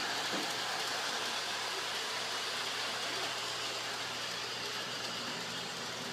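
Bachmann Big Haulers 'Northern Lights' toy train running along its track, a steady even whir of its motor and wheels.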